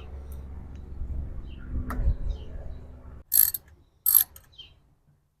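A ratchet wrench clicking in two short spells about three and a half and four seconds in, loosening the ignition coil bolts on a 2004 Toyota Camry engine. A steady low hum runs under it until it cuts off about three seconds in.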